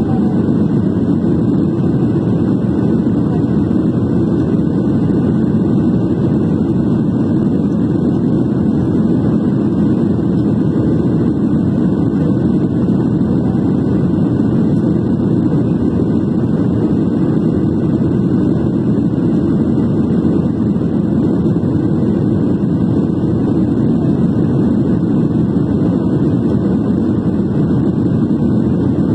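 Steady cabin roar inside a Boeing 737-800 climbing after takeoff, heard at a window seat over the wing: the CFM56-7B turbofans and rushing airflow make an even, low-weighted noise that does not change.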